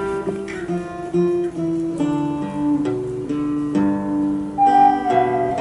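Ocarinas playing a melody over a strummed acoustic guitar. A higher note is held near the end.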